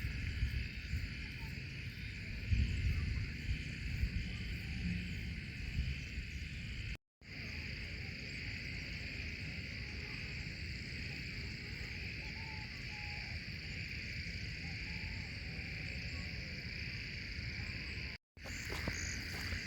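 Steady high pitched chorus of insects, unbroken through the stretch. There is low rumbling underneath in the first half, and the sound drops out completely for a split second twice.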